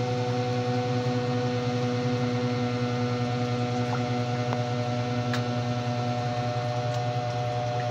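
A machine's motor running steadily with a constant low hum, and a couple of faint clicks about five and seven seconds in.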